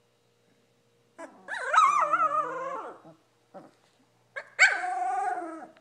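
A 19-day-old Labrador retriever puppy whining: two long, wavering cries, the first about a second in and the second near the end.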